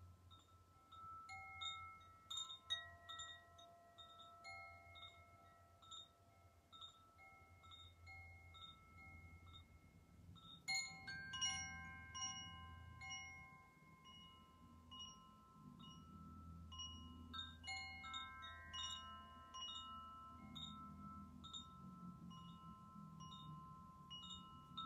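Chimes played by hand: scattered clusters of bright struck notes at many pitches, each ringing on and overlapping the next, with the busiest flurries about two seconds in, at about eleven seconds, and again around seventeen seconds. A faint low hum lies underneath.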